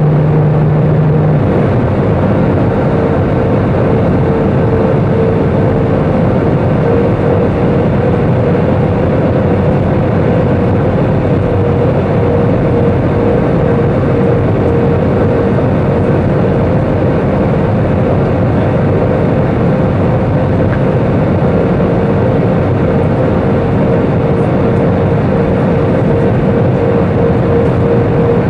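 Steady cabin noise of a jet airliner in flight, the turbofan engines and rushing airflow heard from a window seat over the wing, with a steady hum throughout. A lower hum stops about a second and a half in.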